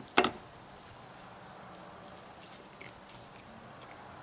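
A short, loud knock about a quarter second in, then faint handling sounds as a slice of smoked brisket is pulled apart by hand: a few soft ticks and clicks over a low background.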